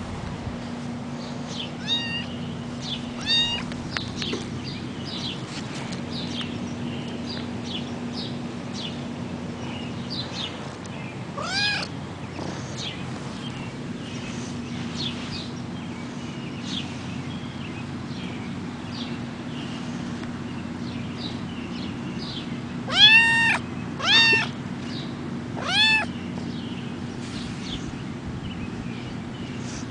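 Orange tabby kitten meowing: a few high, thin mews scattered through, then three louder meows in quick succession near the end.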